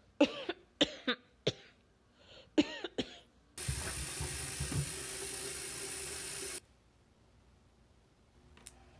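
A person coughs about six times in two short bouts. Then a bathroom sink tap runs for about three seconds, starting and stopping suddenly.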